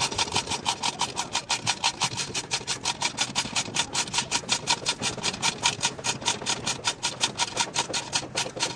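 Rapid, even strokes of a tool scraping metal, about six or seven a second, keeping a regular rhythm.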